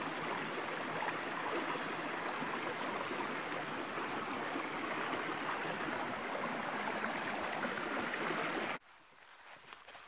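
Shallow, rocky stream babbling and rushing over stones in a steady flow; the sound cuts off suddenly near the end.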